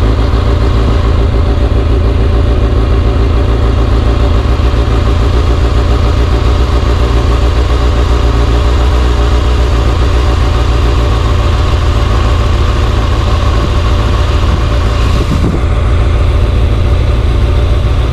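Motor vehicle under way: a steady engine hum over heavy low rumble from the road, holding an even speed.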